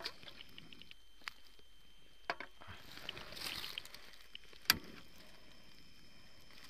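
Faint rustling of clothing and dry leaf litter as someone shifts while crouched, with a few sharp clicks, the loudest about three-quarters of the way through.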